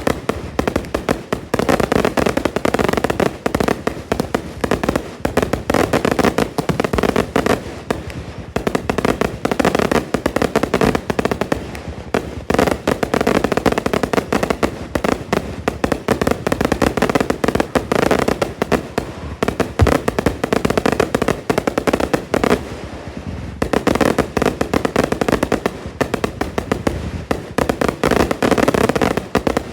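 Fireworks going off in a dense, continuous barrage of rapid overlapping bangs and pops, easing briefly about three-quarters of the way through before picking up again.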